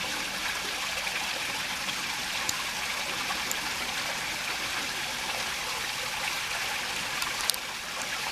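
A shallow, rain-swollen creek running steadily over its bed, an even rushing trickle. A few faint sharp clicks sound over it, the clearest near the end.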